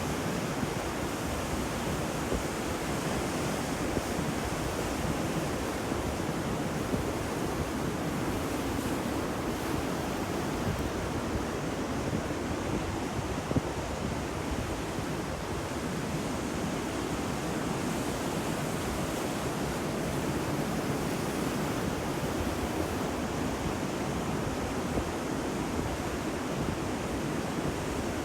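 Ocean waves washing on a shore, a steady wash of surf with no distinct breaks, with some wind rumble on the microphone.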